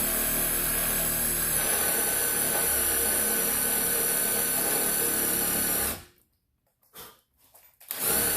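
Power drill running steadily in reverse, a Speed Out extractor bit's cutting end boring into a stripped screw head. It stops about six seconds in, then starts again in a short burst near the end.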